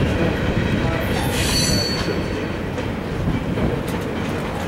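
Empty rock gondola cars of a freight train rolling past with a steady rumble of wheels on rail. About a second in, a short high-pitched metallic wheel squeal rings out for under a second.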